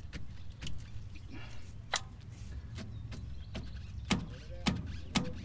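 A screwdriver prying and scraping at a rusted steering-knuckle oil seal, with short irregular metal clicks and scrapes as the tip works behind the seal. A low steady hum runs underneath.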